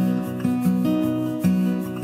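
Background music: acoustic guitar playing chords, with new notes about every half second.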